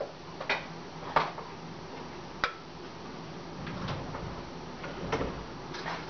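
A few scattered sharp clicks and taps, single and well spaced, in a quiet kitchen.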